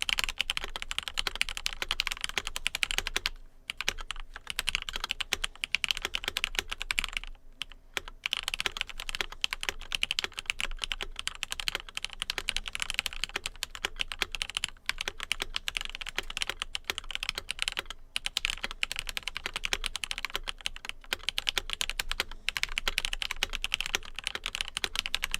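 Red Square Keyrox TKL mechanical keyboard in stock form, typed on fast and continuously: a dense run of key clacks with brief pauses about 3.5 and 7.5 seconds in.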